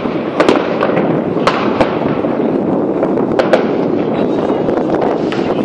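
Many fireworks and firecrackers going off at once: a continuous crackling din with sharp bangs every second or so.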